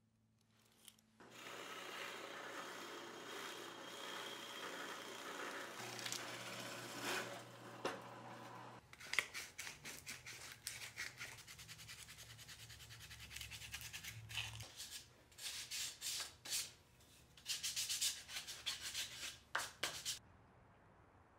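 Hand sanding the edges of a small pine 2x4 block: a steady rubbing for the first several seconds, then quick back-and-forth strokes from about nine seconds in that stop shortly before the end.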